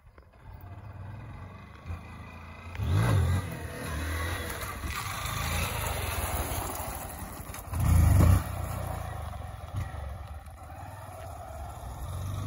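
Motorcycle engine revving hard under load as the bike is wheelied in first gear and shifted up to second with the front wheel in the air. Two loud surges of throttle, about three seconds in and about eight seconds in, the second the louder, with the engine running steadily between them.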